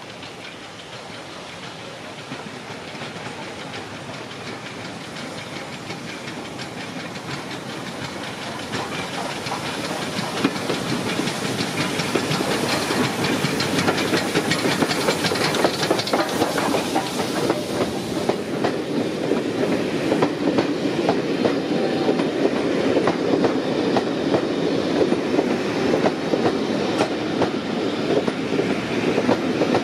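LMS Black 5 4-6-0 steam locomotive and its train approaching at speed, growing steadily louder over the first ten seconds, then passing loud with the wheels clattering over the rail joints.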